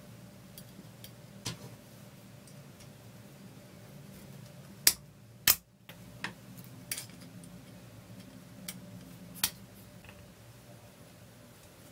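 Small metal tool parts handled by hand: scattered light clicks and taps as a tiny hex key and screw are picked up and worked into the saw's blade clamp, with two sharper knocks about five seconds in. A faint steady hum runs underneath.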